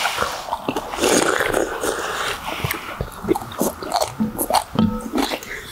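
People slurping and chewing squid and radish soup: wet slurps of the broth and squid pieces, mixed with chewing and a few light clicks of utensils.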